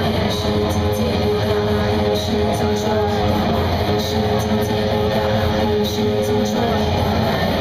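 Live band music, loud and dense, led by guitar. There is no singing in this stretch.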